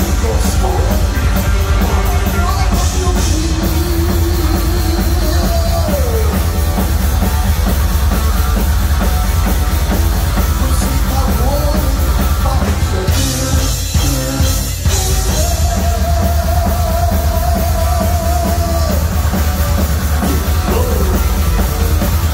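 Live heavy metal band playing loud: distorted electric guitar, bass and a rock drum kit, with long held notes that slide down in pitch and a brief break in the drumming about two-thirds of the way through.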